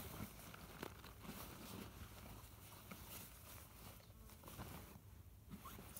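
Faint rustling and scuffing of nylon fabric as a stuff-sack pump for an inflatable sleeping mat is pulled and worked out of a backpack, with a few soft ticks of handling.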